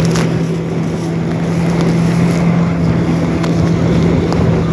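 Motorboat engine running at a steady pitch, with wind on the microphone.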